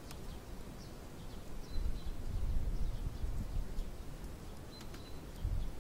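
Outdoor ambience: a low rumble on the microphone, strongest from about two to three and a half seconds in, with a few faint bird chirps above it.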